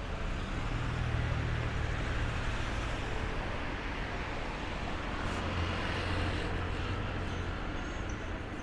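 Street traffic: vehicles going by, a low engine rumble that swells twice over a steady wash of road noise.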